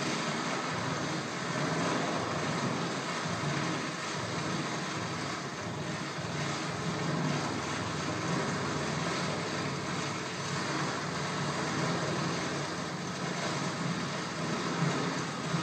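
Steady, even, noise-like drone, most likely the sound track of a multi-channel video installation.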